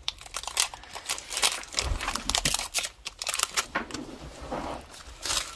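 Trading card packaging being handled and opened: irregular crinkling of wrapper and crackly clicks of cardboard and foil.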